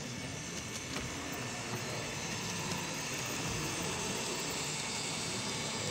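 Model electric locomotive and a long train of hopper wagons rolling past on model railway track, a steady hissing, whirring running noise.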